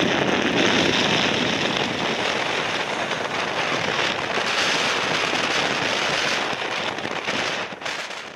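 Airbus A350 airliner on final approach with its gear down, its Rolls-Royce Trent XWB jet engines making a steady broad rush, fading out near the end.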